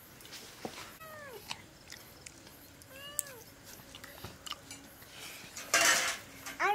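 A cat meowing several times, short falling calls a couple of seconds apart, with a brief loud burst of noise shortly before the last one.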